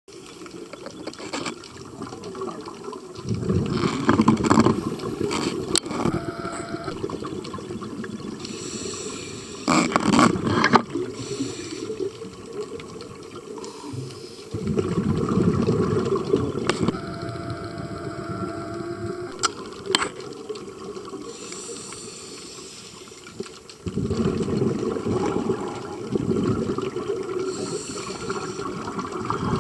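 Scuba diver breathing through a regulator underwater: long surges of exhaled bubbles rushing every several seconds, with quieter hissing between breaths.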